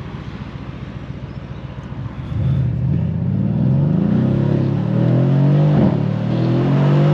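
Mercedes-AMG C63 S Coupé's 4.0-litre M177 twin-turbo V8 running steadily at first, then accelerating hard from about two seconds in, the engine note climbing in pitch. It gives a short crack at an upshift a little before six seconds in, with the exhaust flaps open in Sport Plus.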